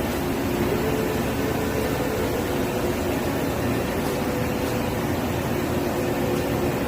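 Steady industrial machinery hum with a few low steady tones running through it.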